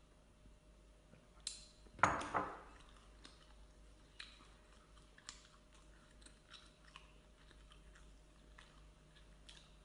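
A person chewing and biting food close to the microphone, with a louder bite about two seconds in and scattered small crunches and clicks after it.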